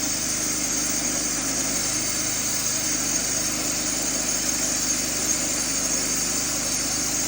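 Old sawmill's engine running steadily at an even pitch.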